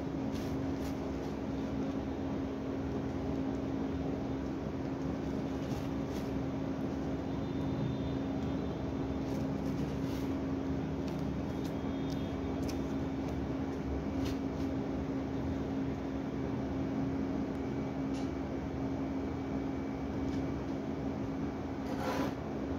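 A steady machine hum over room noise, with faint rustles and light ticks from metallic silver ribbon being wrapped around a craft ring by hand, and a slightly louder rustle near the end.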